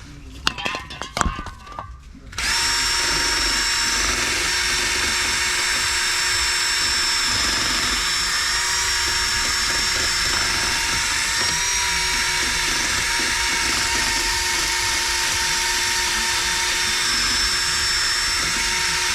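A few metallic clanks, then a power drill starts about two seconds in and runs at a steady, unchanging speed for about seventeen seconds before stopping suddenly.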